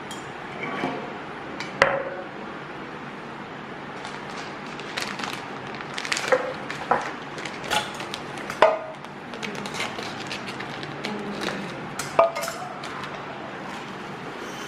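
Kitchen dishes and containers being handled and set down, a string of irregular clinks and knocks, the sharpest about two, nine and twelve seconds in.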